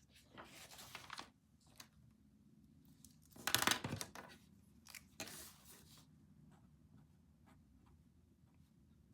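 Paper being handled at a desk: three short rustling, tearing-like noises, the loudest about three and a half seconds in, followed by a few faint light taps.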